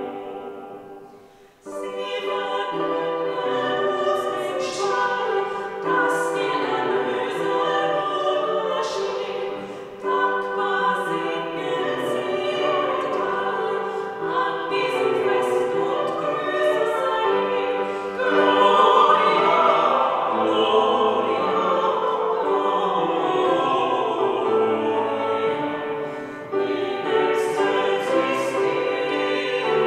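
Small group of trained classical singers, soprano, alto, tenor and bass, singing a hymn with grand piano accompaniment in a church. A short break about a second and a half in, then the singing resumes and grows louder about two-thirds of the way through.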